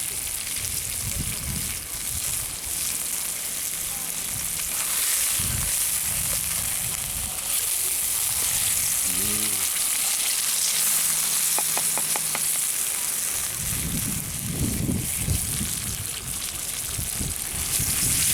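Gammon frying in a pan, a steady high sizzle.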